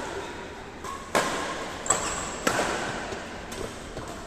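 Badminton rackets striking the shuttlecock in a rally, about five or six sharp hits at an irregular pace, each with a short echo.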